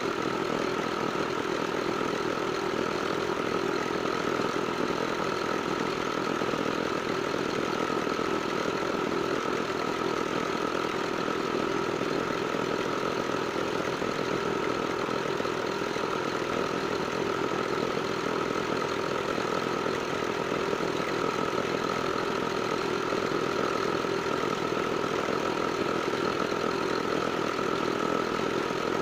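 Small diesel engine of a mini concrete mixer running steadily at a constant speed, with a steady whine over the engine note.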